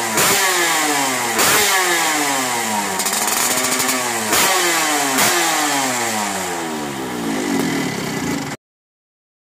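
Yamaha RX-King two-stroke single with a ported cylinder and an SMR aftermarket exhaust, revved repeatedly in sharp throttle blips, the revs falling away after each one. The sound stops suddenly near the end.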